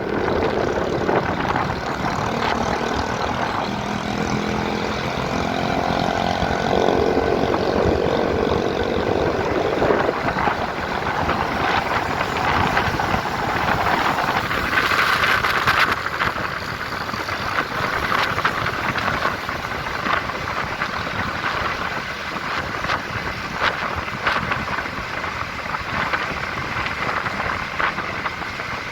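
Diesel engines of two coupled GE CM20EMP (CC 206) locomotives running, a loud continuous mechanical sound whose tone shifts about ten seconds in and again around fifteen seconds.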